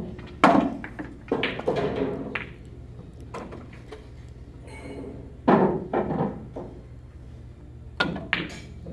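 Pool balls knocking hollowly against each other in a pool table's ball-return tray as they are taken out by hand, in several short clusters of clacks and thunks.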